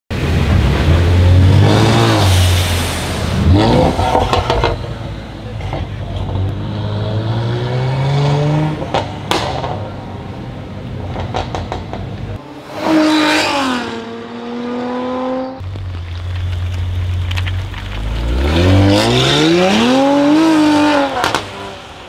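Brabus-tuned Mercedes-AMG GLE43 Coupe's twin-turbo V6 through a straight-piped exhaust, idling and revving several times, the pitch sweeping up and falling back each time. Sharp pops and crackles sound on the overrun.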